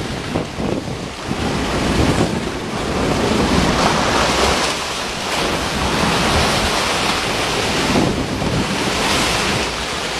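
Sea water surging and splashing, with heavy wind buffeting the microphone; the noise swells and eases in uneven surges.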